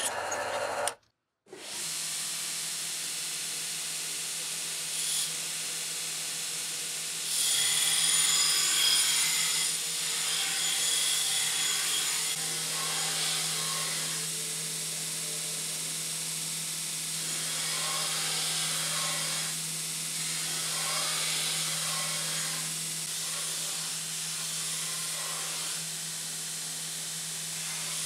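A drill press boring into a steel plate for about a second, then, after a brief gap, a belt grinder running. Its motor hums steadily under the hiss of the abrasive belt grinding a steel knife blank, and the sound gets louder about seven seconds in.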